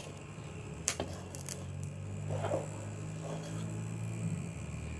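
A few light clicks of a cooking utensil against a pot, the clearest about a second in, over a low steady hum.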